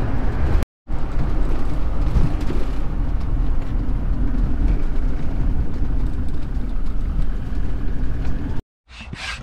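Ford Transit campervan driving, heard from inside the cab: a steady low engine and road rumble, broken by a brief gap just under a second in.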